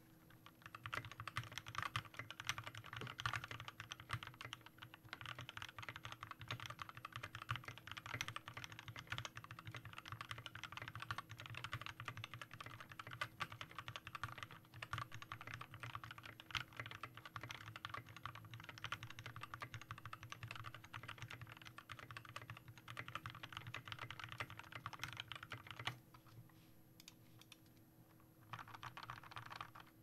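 Rapid typing on a Skyloong GK61X 60% mechanical keyboard fitted with Tealios V2 linear switches, lubed with Krytox 205g0 and filmed, on 65 g TX springs, with PBT doubleshot keycaps: a dense, continuous run of keystrokes that pauses for about two seconds near the end and then resumes.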